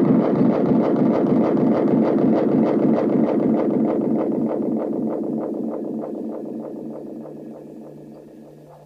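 Evans ES-1 Echo Chorus echo unit feeding back on itself: a noisy pulsing drone of echo repeats, several pulses a second, that fades steadily away as the echo repeat is turned down. A low steady hum runs underneath.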